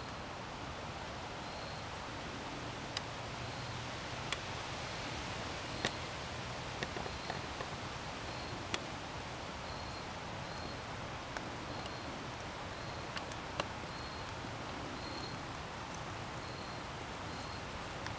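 Outdoor ambience: a steady hiss with scattered small clicks and rustles, and a faint high chirp repeating about once a second.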